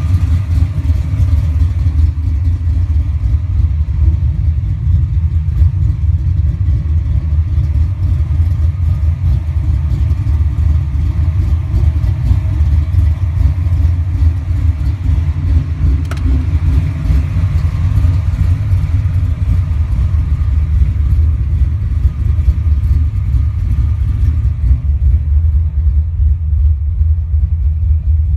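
Fox-body Mustang's supercharged 331 cubic-inch stroker V8 idling steadily, with noise from its Vortech V3 Si centrifugal supercharger at idle, which the owner guesses is normal when the blower is not under load.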